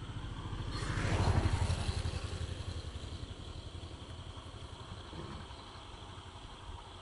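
A motor vehicle passing on the road, its engine swelling to a peak about a second in and then fading away.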